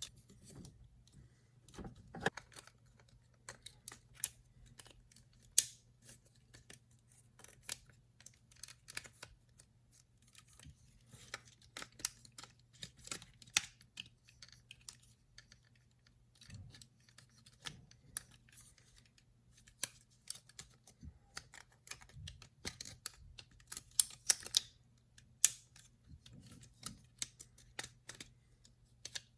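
Plastic parts of a transforming robot display piece clicking, snapping and rattling in irregular runs as they are handled and folded into place.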